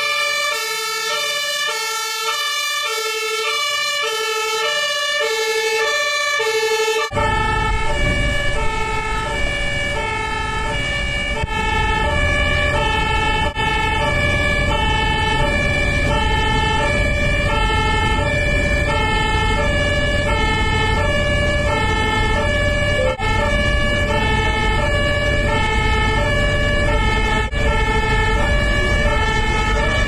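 German fire engine two-tone siren (Martinshorn), two pitches alternating steadily. About seven seconds in it changes abruptly to a slower alternation, now with the low rumble of the vehicle running beneath.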